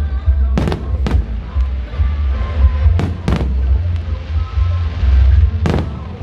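Fireworks bursting overhead: five loud bangs, two pairs close together and a last one near the end, over loud music with a heavy bass beat.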